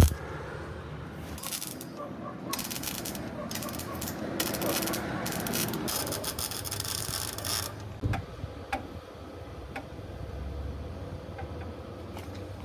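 Electric arc welding on a bus's steel wheel-arch frame: a crackling sizzle in short stretches from about two seconds in until nearly eight seconds, then it stops. After that come a few scattered light clicks.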